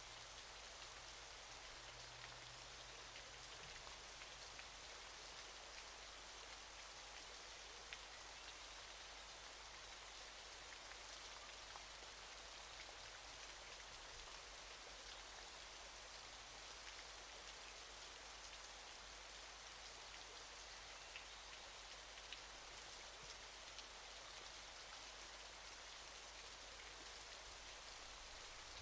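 Faint, steady hiss of falling water from a waterfall, with scattered small splashing ticks.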